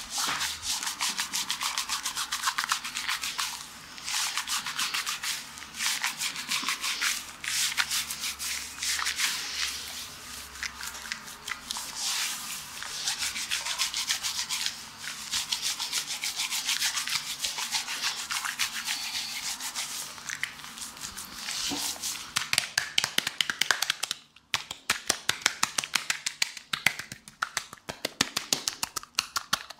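Hands rubbing a foamy scrub over bare skin on a man's chest: a dense, fast, scratchy friction of quick strokes. Near the end it turns into sharper, separate strokes, several a second.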